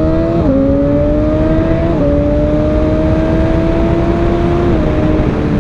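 Honda CBR1000RR inline-four engine accelerating gently and shifting up three times, the engine note climbing and then dropping abruptly at each shift: clutchless upshifts through the Bazzaz quick shifter.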